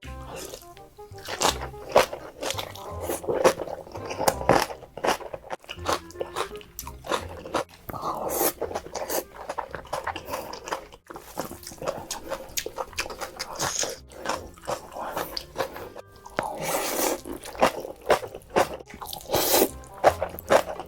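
Close-miked eating of noodles: repeated crunching bites and chewing, over quiet background music.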